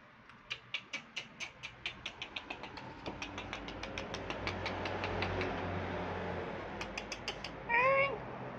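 A run of sharp clicks, about three or four a second, then a single short meow from a cat near the end, its pitch rising and then falling.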